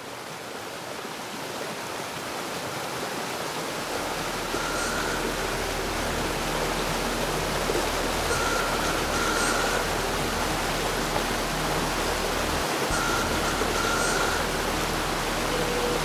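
Rushing water of whitewater river rapids, a dense steady hiss that grows louder over the first few seconds and then holds.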